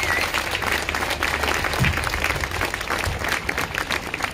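Crowd applauding, many hands clapping together; it eases off slightly near the end.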